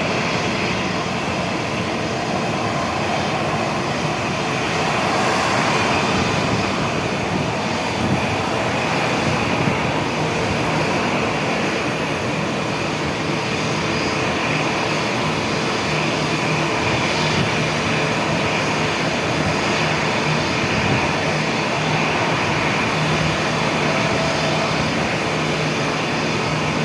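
Airbus A321neo jet engines running at takeoff power with a steady rushing noise and a constant low hum, as the airliner climbs out after takeoff.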